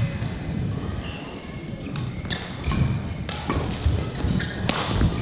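Badminton play on an indoor court: sharp racket strikes on the shuttlecock, short squeaks of shoes on the court mat, and thudding footfalls. The sharpest, loudest strike comes near the end.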